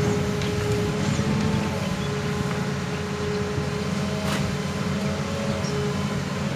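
Hitachi Zaxis 200 crawler excavator's diesel engine running steadily while the boom and bucket dig into the soil.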